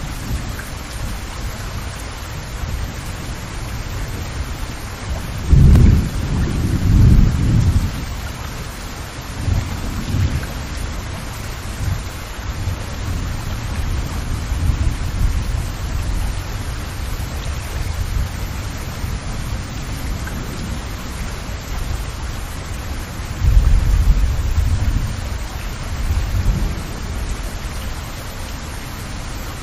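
Steady rain falling, an even hiss, with two louder low rumbles about six seconds in and again about twenty-four seconds in.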